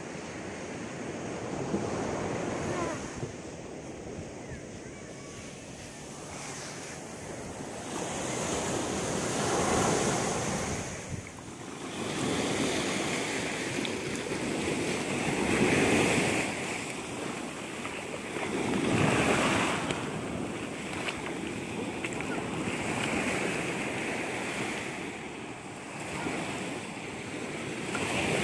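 Ocean surf breaking and washing up a sand-and-pebble beach, the rush of water swelling and falling back every few seconds.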